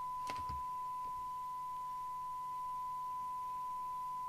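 A Midland 77-810 CB radio's loudspeaker playing a steady, pure test tone. The tone is the modulation of a 100 microvolt signal-generator signal, demodulated by the receiver. A brief faint noise comes just after the start.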